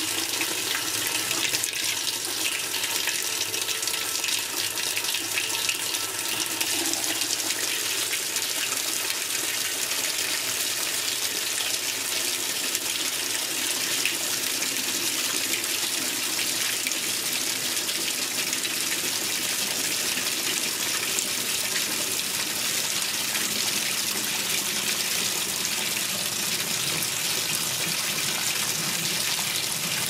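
Water pouring from the fill inlet of an Admiral (Whirlpool) belt-drive top-load washer into its tub as the diagnostic self test opens the fill valves: cold alone at first, then hot and cold together a few seconds in. The result is a steady, heavy splashing stream.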